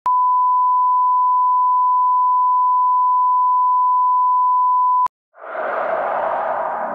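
Steady 1 kHz test tone, the reference bleep that goes with colour bars, held for about five seconds and cutting off sharply. After a short gap, ambient music with a gong-like swell fades in near the end.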